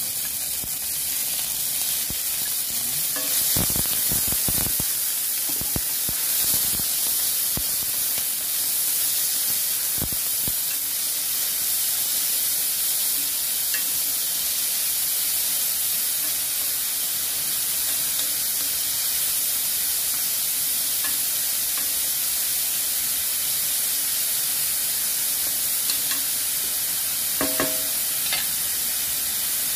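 Sliced marinated beef and garlic sizzling in hot oil in a pan, stirred with a wooden spatula. A steady sizzle runs throughout, with a run of knocks and scrapes of the spatula against the pan between about three and ten seconds in.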